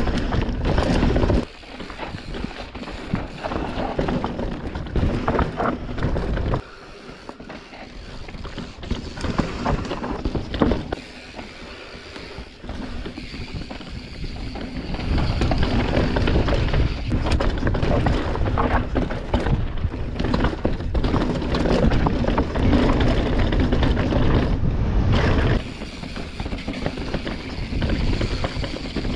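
Mountain bike descending a dirt trail: tyres on dirt and the bike rattling and knocking over bumps, with a rear hub's ratchet clicking while coasting and wind rumble on the microphone. The loudness jumps up and down several times and is heaviest in the second half.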